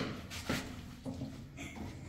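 A metal hand tool clicking and scraping against a wall pipe fitting: a sharp click at the start, a lighter one about half a second in, then faint scuffs, over a steady low hum.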